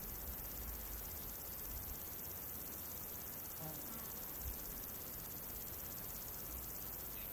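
Insects chirring steadily in a continuous high-pitched trill, crickets by the sound of it, over a faint, uneven low rumble.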